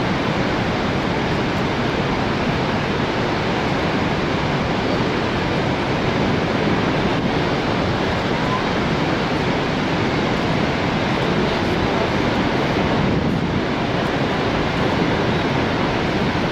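Niagara Falls: a steady, loud rush of falling water, an even unbroken noise with no let-up.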